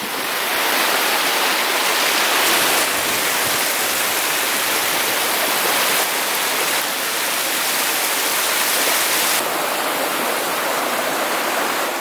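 Running water of a small moorland stream: a steady, loud rushing hiss.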